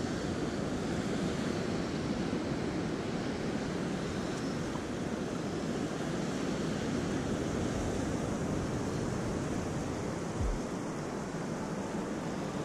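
Ocean surf washing up the beach, a steady rushing noise mixed with wind on the microphone. A single dull low thump sounds near the end.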